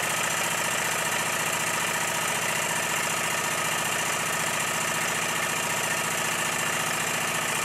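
Live-steam model traction engine running fast on steam, giving a quick, even chuffing beat with mechanical clatter at a steady pace.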